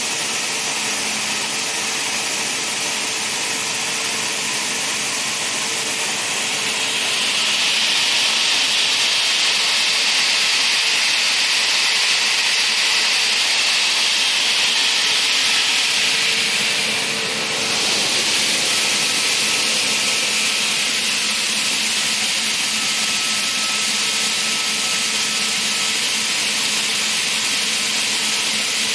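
TOS Svitavy PKSN 32A crawler-feed multi-rip saw running after switch-on: its 45 kW main motor and spinning saw blade make a steady whirring hum with a high whine. A hiss grows louder about a quarter of the way in and dips briefly a little past halfway.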